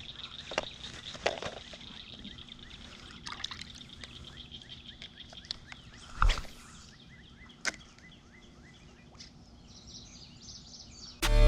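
Quiet outdoor ambience: faint bird chirps over a steady high-pitched hum, with a few sharp clicks and one louder knock a little past halfway. Loud guitar music starts suddenly at the very end.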